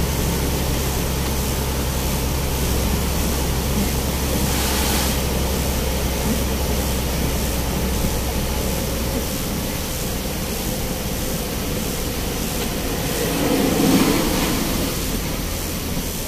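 Engine and tyre noise heard from inside a vehicle's cab while driving on a wet road, a steady low drone with an even hiss. The drone drops away a little past halfway, and there are two brief swells, one about five seconds in and a louder one near the end.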